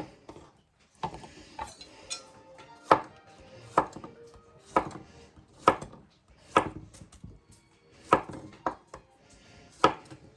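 Kitchen knife chopping vegetables on a cutting board: single sharp chops, about one a second.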